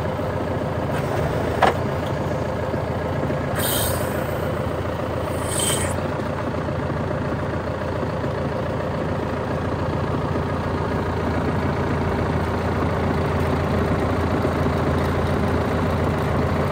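John Deere 6125R tractor's four-cylinder diesel engine idling steadily, with a short click and a hiss of about two seconds a few seconds in.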